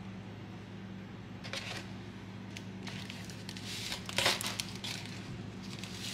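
Crinkling and rustling of plastic-wrapped cake slices and gloved hands against a paper cake box as the slices are packed in. The rustles come in short bursts, the loudest about four seconds in, over a steady low hum.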